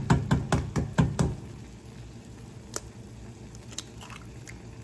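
A metal utensil clinking rapidly against a pan, about four strikes a second, for the first second and a half. After that the pot of noodle soup simmers quietly, with a few faint ticks.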